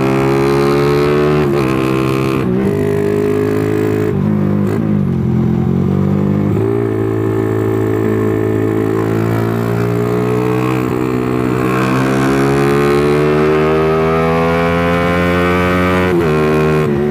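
Motorcycle engine under way, its note rising through the gears with short drops at shifts about one and a half and two and a half seconds in. It eases off and falls around four to six seconds in, then climbs steadily again until another shift near the end. The bike is pulling without the coughing that its carburetor tuning was meant to cure.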